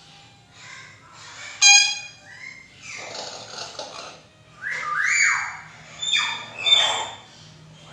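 Hill myna whistling and calling: a sharp, ringing whistle about two seconds in, then a run of loud gliding calls and squawks in the second half.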